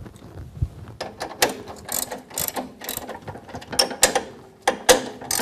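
Socket ratchet wrench clicking in quick, uneven strokes as it tightens the bolts of a chop saw's angle plate.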